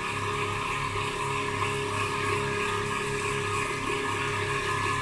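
Crown radio-cassette player's speaker giving out a steady hum and hiss with a low pulse about twice a second as the volume control on the circuit board is touched. Sound getting through when the control is touched points to an open volume potentiometer as the cause of the cut-out.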